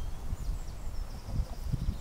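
Wind buffeting the microphone in uneven low rumbles, with faint bird chirps above it.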